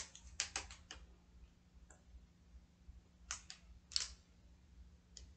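A handful of faint, irregular clicks and crackles from chugging water out of a plastic water bottle.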